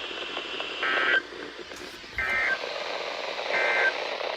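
NOAA Weather Radio SAME end-of-message code played through a radio receiver's speaker: three short, identical digital data bursts about 1.4 seconds apart over a steady static hiss. It marks the end of the weekly test alert.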